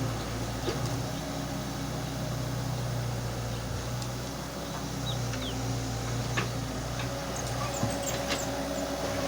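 Diesel engine of heavy machinery running steadily at a low, even pitch, with a few light clicks and knocks over it.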